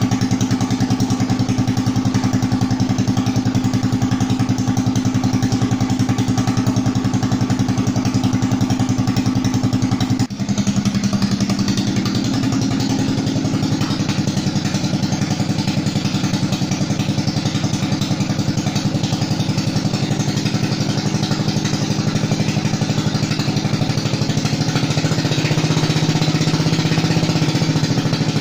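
Briggs & Stratton 11.5 hp ride-on mower engine running steadily, really smoothly, with its carburetor airflow freshly adjusted. About ten seconds in the level dips for a moment, and after that the engine note shifts slightly.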